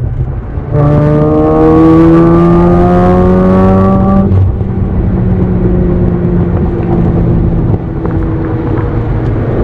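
Mazda RX-8's two-rotor rotary engine, breathing through a catalytic-converter-deleted mid pipe and an Agency Power exhaust, accelerating under load: the revs climb steadily for about three and a half seconds. The revs then drop suddenly and the engine runs steadier at a lower pitch.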